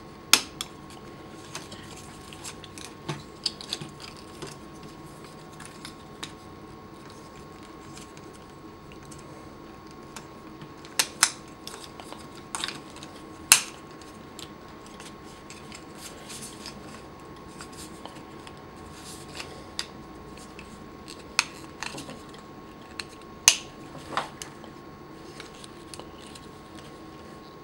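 Sharp plastic clicks and snaps from the joints and pegs of a Mastermind Creations Felisaber transforming figure as it is bent and pegged into shape, coming singly every few seconds with a small cluster about halfway through. Under them runs a steady faint hum with a thin high tone.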